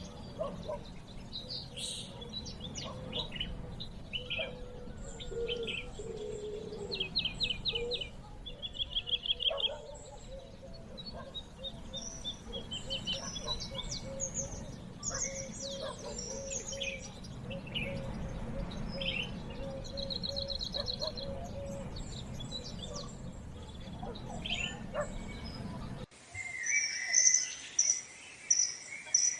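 Wild birds calling and singing: a mix of varied chirps, rapid trills and short whistles over a steady low background rumble. About 26 seconds in, the sound cuts abruptly to loud, evenly repeated sharp high-pitched calls.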